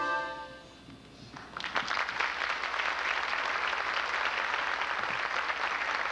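A big band's last held chord dies away, and about a second and a half in, an audience breaks into applause that keeps going.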